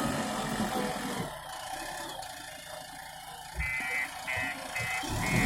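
Heavy diesel engine of a backhoe loader or tipper truck running. From about three and a half seconds in, a reversing alarm beeps about twice a second.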